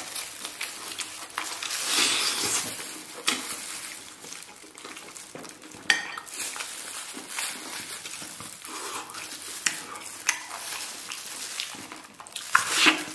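Close-up mouth sounds of a person eating braised lamb: wet chewing, sucking meat off the bone and lip-smacking, with scattered small clicks. They grow louder near the end.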